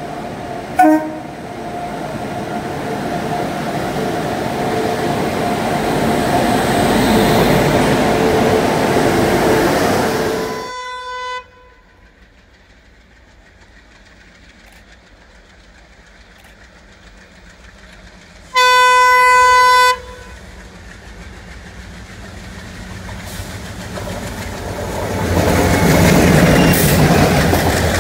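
Indian Railways trains: a train running into a station grows louder over the first ten seconds, with a short horn toot about a second in and another horn just before a cut. After a quiet stretch, an approaching train's locomotive horn sounds one steady blast of about a second and a half. Then the rumble of diesel locomotives and coaches builds to loud as the train passes close by near the end.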